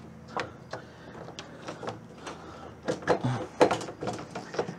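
Scattered metallic clicks and knocks from a VW Beetle door's window glass being worked into place, the glass catching against the window regulator inside the door shell. A cluster of sharper knocks comes about three seconds in.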